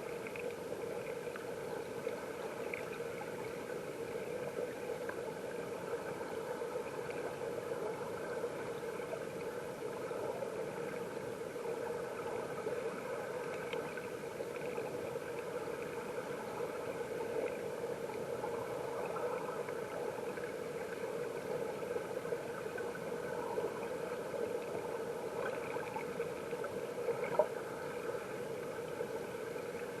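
Mountain stream water rushing and gurgling steadily, heard from underwater, with a few faint ticks.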